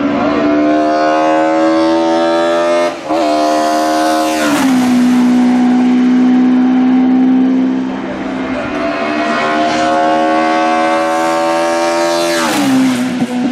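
BMW M3 E30 DTM's S14 four-cylinder racing engine at full throttle with its carbon airbox intake sound, the pitch climbing as it pulls. The pitch drops sharply at a gear change about four and a half seconds in and again near the end.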